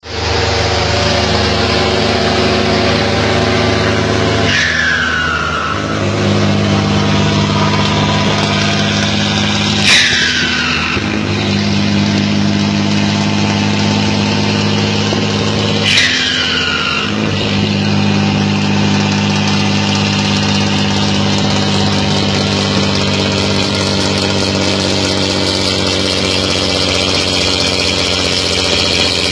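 Turbocharged diesel truck engine running under load with a steady note. Three times, about six seconds apart, the engine note drops away for about a second and a high turbo whistle falls sharply in pitch, the second and third times with a short hiss as boost pressure is let off, before the engine pulls again.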